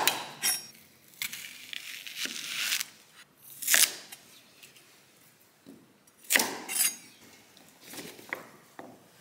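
A chef's knife slicing through a raw onion on a wooden cutting board: a series of separate crisp crunches and knocks of the blade on the board, with one longer stretch of slicing about a second in.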